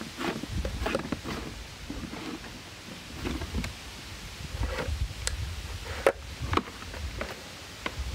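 Clunks, clicks and scraping of a steel axle rod being slid out of a Power Wheels ride-on toy's plastic body, with the plastic wheel and motor gearbox being handled; a sharp knock about six seconds in is the loudest.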